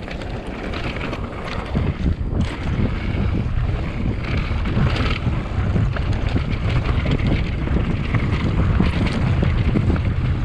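Wind buffeting the microphone as a mountain bike rides fast down a rough dirt trail, the tyres and bike rattling and knocking over bumps. The rush builds over the first couple of seconds and then stays steady.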